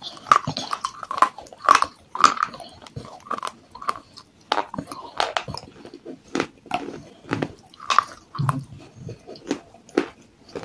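Baked clay pot pieces coated in white paste being bitten and chewed: a string of sharp, irregular crunches, roughly one or two a second.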